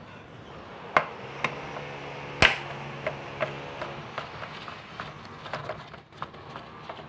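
Sharp knocks and clicks of a screwdriver and plastic parts inside an air-conditioner indoor unit being taken apart: three hard knocks in the first two and a half seconds, the last the loudest, then lighter irregular ticks, over a steady low hum.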